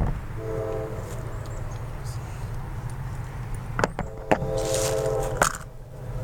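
Distant diesel locomotive horn on an approaching freight train, sounding its chord twice: a short blast about half a second in and a longer one about four and a half seconds in. A steady low rumble runs underneath, with a few sharp knocks near the close microphone.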